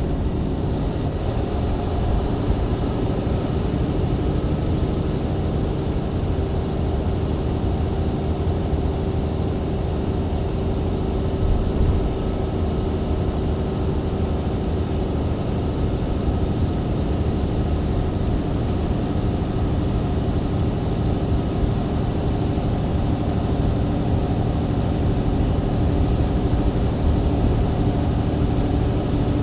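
Mercedes-Benz Citaro C2 hybrid bus with Voith automatic gearbox, heard from inside the cabin, cruising at steady speed: an even engine and drivetrain drone with road noise, no gear changes or kickdown.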